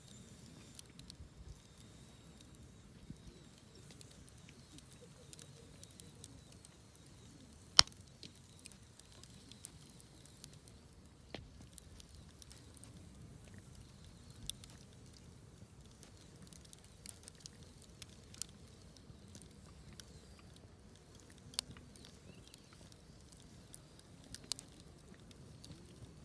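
Wood campfire burning, with a faint low crackle and scattered sharp pops and snaps; one loud pop comes about eight seconds in, with smaller ones spread through the rest.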